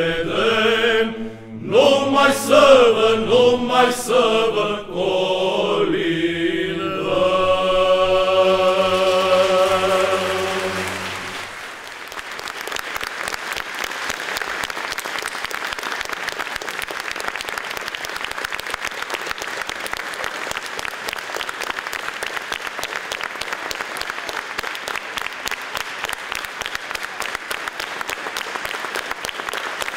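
Male Byzantine-style church choir singing the closing phrase of a Romanian Christmas carol and holding the final chord over a steady low note. The singing cuts off a little over a third of the way in, and audience applause follows, steady to the end.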